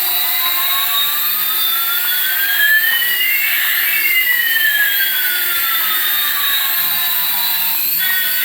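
Jet airliner engine sound: a steady high hiss with two whining tones, one rising and one falling, that cross about halfway through.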